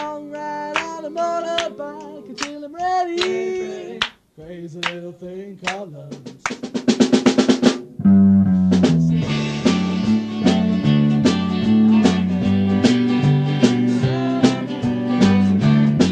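A band rehearsing: loose pitched notes and taps, then a quick snare drum roll about six and a half seconds in. The full band comes in at about eight seconds, with drums and a repeating bass line.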